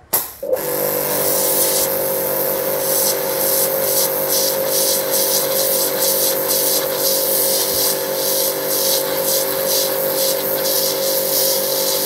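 JPT 2400-watt electric pressure washer kicking on suddenly as the gun is triggered and running steadily with a strong hum, its pointed high-pressure jet hissing and spattering against a clay brick to cut into it.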